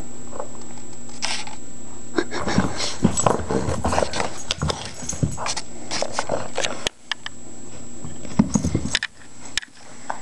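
Boston terrier chewing and mouthing its toys: a tennis ball and a plush squeaky toy. From about two seconds in there is a busy run of irregular crunching, clicking and rustling, with a few sharper sounds near the end.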